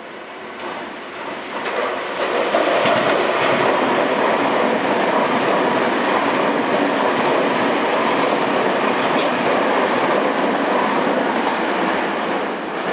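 Commuter train passing close by. Its noise builds over the first couple of seconds into a steady, loud rush of wheels on rail with a few clacks over the rail joints, then starts to ease off near the end.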